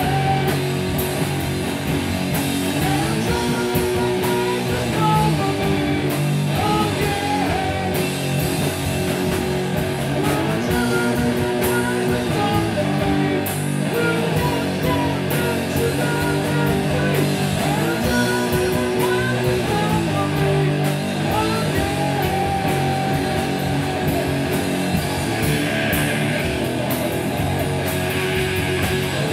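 Live rock band playing loud: electric guitar, bass guitar and drum kit with crashing cymbals, heard in a hall.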